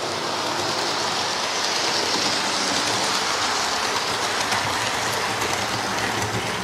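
Hornby Class 43 HST model train running well on the layout's track: a steady rushing rattle of wheels and motor that swells about two seconds in as the train passes close.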